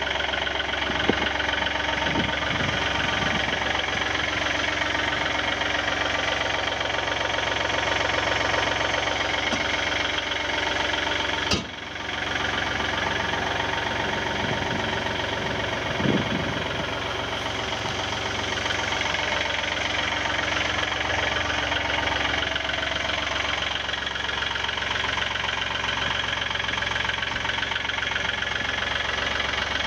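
Yanmar V3-6 wheel loader's diesel engine idling steadily, with a brief drop-out about twelve seconds in.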